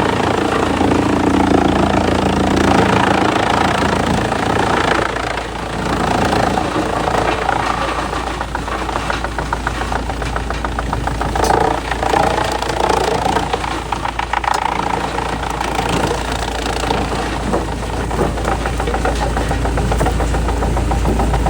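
A heavy machine's engine running, with a fast, even rattle; the sound changes about four to five seconds in, from a steady hum to a deeper rumble.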